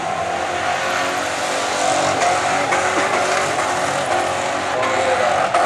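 Holden VN Commodore doing a burnout: the engine is held at high revs while the rear tyres spin and squeal against the pad, a steady loud mix of engine note and tyre noise with the pitch wavering slightly.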